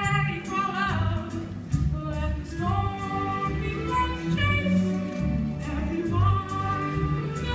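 Show-tune music from a stage musical: singing voices over accompaniment with a bass line that steps from note to note.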